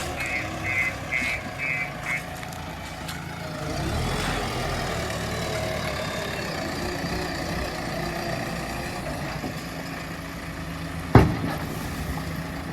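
JCB backhoe loader's diesel engine running steadily at work, with a few light clicks early and one loud sharp knock about eleven seconds in.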